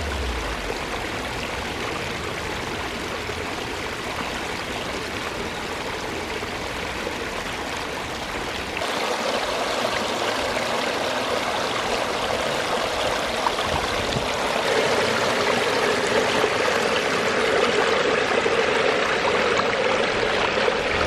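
Water running and trickling over the rocks of a small pondless waterfall and stream, a steady rushing sound that changes abruptly about 9 s in and again about 15 s in, becoming louder.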